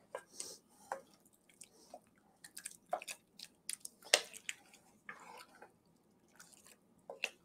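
Wooden spoon stirring thick, chunky chili in an enameled cast-iron pot: soft wet squelching with scattered light knocks of the spoon against the pot, as a blended portion is mixed back into the chili.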